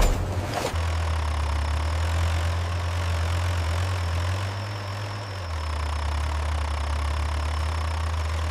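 A brief clatter, then an engine running steadily with a low drone that eases off a little about four seconds in and comes back up about a second later.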